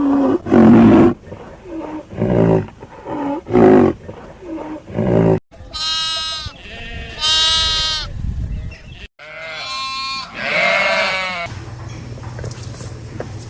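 Farm animals calling: a run of about five short, low calls, then after an abrupt cut two high, wavering calls and a third after another cut. A steady low hum comes in near the end.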